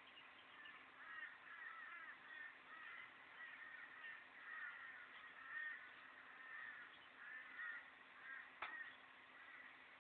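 Torresian crows cawing in quick runs of short calls, faint and thin through a low-quality camera microphone. A sharp click sounds near the end.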